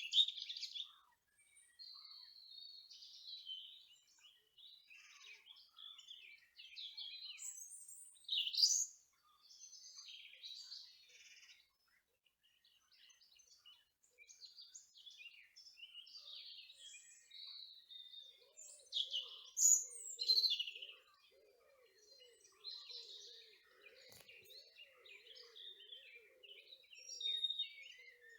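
Small birds chirping and singing in short, separate phrases with brief pauses between them. About two-thirds of the way in, a faint low wavering sound joins them.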